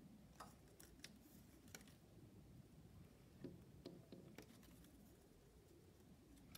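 Near silence, with a few faint scattered clicks and rustles of paper card being handled at a table.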